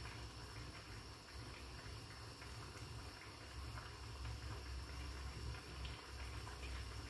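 Thickening gravy bubbling and ticking softly around pork spareribs in a frying pan, over a steady low hum.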